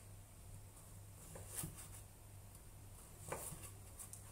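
Chef's knife slicing galangal root into thin rounds on a bamboo cutting board: a few faint, irregularly spaced taps of the blade on the board, over a steady low hum.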